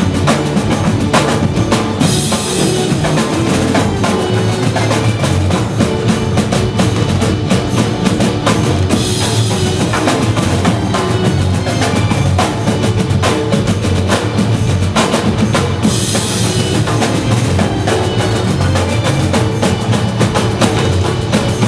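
Banjo party band playing dandiya music, driven by dense, steady drumming and percussion.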